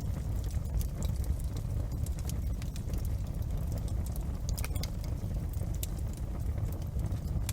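Wood fire crackling in a fireplace: scattered sharp pops and snaps over a steady low rumble of the burning fire, with a brief flurry of louder snaps a little past halfway.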